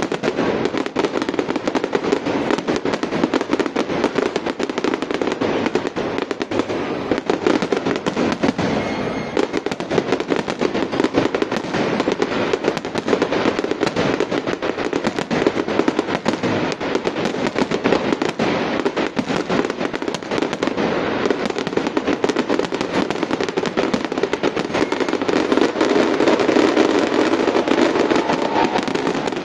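Fireworks display: a dense, unbroken barrage of bangs and crackling from aerial shells bursting overhead, a little louder near the end.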